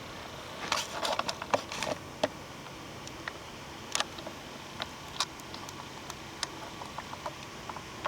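Light clicks and crackles over a steady background hiss. They come in a quick cluster in the first two seconds, then as single clicks every half second or so.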